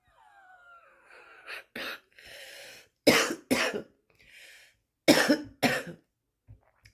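A woman's harsh smoker's morning cough: a thin wheeze, one cough, then two pairs of loud coughs with rasping breaths drawn in between. She says her lungs and breath are really obstructed.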